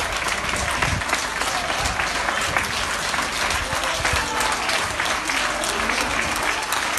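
A crowd of hospital staff applauding, many hands clapping steadily without a break.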